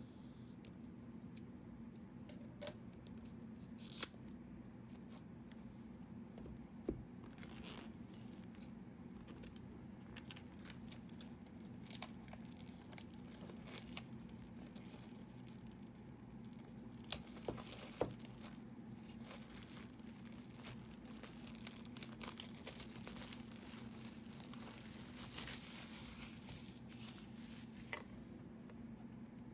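Packaging of a Stillman & Birn Delta Edition sketchbook being worked open by hand: quiet, intermittent tearing and crinkling with scattered sharp clicks, over a low steady hum.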